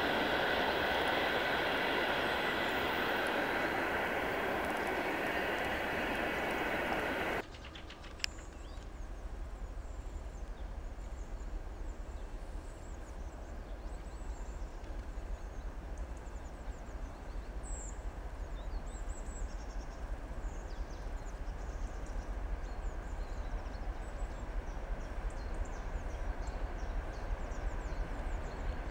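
Passenger train wheels rolling away on the track, fading slightly, then cut off abruptly about seven seconds in. After that, birds chirp over a low rumble that grows steadily louder as a suburban train hauled by two TEP70 diesel locomotives approaches from far off.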